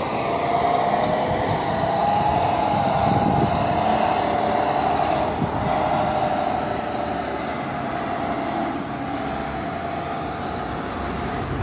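Diesel engine of an International semi-truck running as the tractor-trailer moves slowly, with a steady whine that drifts slightly up and down in pitch over the engine's rumble.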